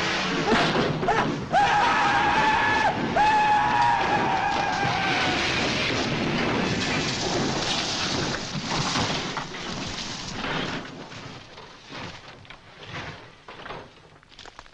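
Car crash: a long high screech in two pulls, sliding slightly down in pitch, over a loud noisy crash and rumble that dies away over the last few seconds.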